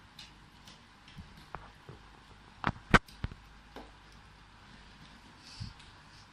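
A cardboard laptop box and its packaging being handled: scattered light taps and clicks, with three sharp knocks close together about halfway through.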